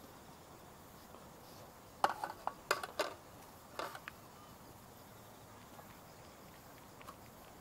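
A handful of light, sharp clicks and clinks, like small camp dishes or utensils being handled, bunched between about two and four seconds in over a faint steady background.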